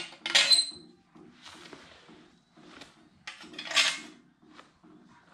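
A sheet-metal brake dust shield and caliper bracket clinking and rattling against each other and the spindle as they are fitted by hand. There are a couple of sharp metal clatters in the first second, one with a brief ring, and another clatter about three and a half seconds in.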